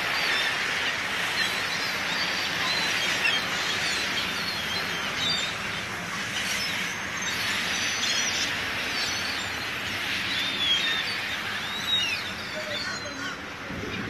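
A large flock of pigeons and gulls flapping as birds take off and land, a steady rush of many wingbeats with short bird calls over it.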